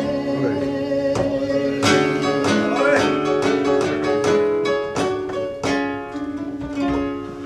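Flamenco guitar playing a soleá passage between sung lines: quick plucked runs broken by sharp, full strummed accents.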